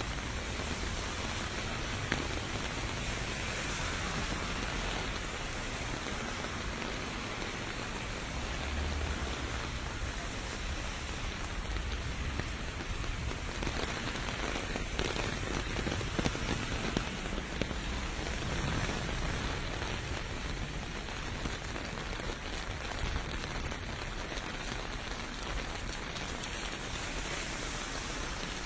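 Steady rain falling and pattering on pavement, an even hiss with no let-up.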